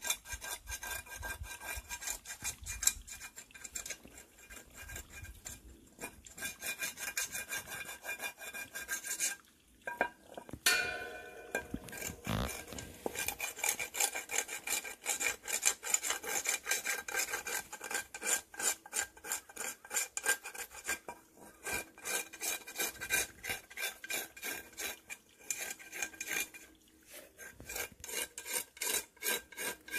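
Cicadas buzzing in a rapid, pulsing rasp that runs on without let-up, with a short lull about nine to ten seconds in.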